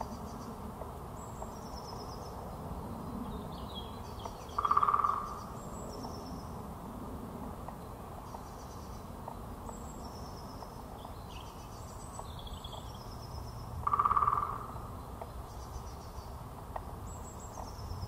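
Great spotted woodpecker drumming: two short, very fast drum rolls on wood, about ten seconds apart, the territorial drumming of early spring. Short high songbird phrases repeat in the background.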